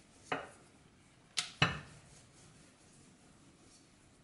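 Wooden rolling pin knocking against the rolling board while puri dough is rolled out. There is one light knock about a third of a second in, then a louder pair of sharp knocks close together about a second and a half in.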